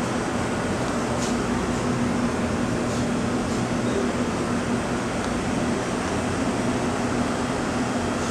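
Steady rush and low hum of commercial kitchen ventilation fans running, with a few faint clicks.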